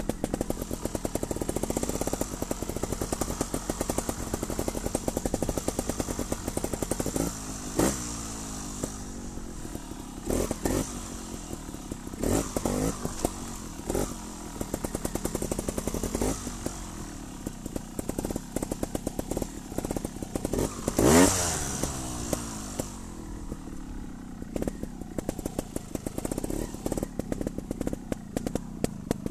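Trials motorcycle engine running at low speed with repeated blips of the throttle, its pitch rising and falling several times; the loudest rev comes about two-thirds of the way through.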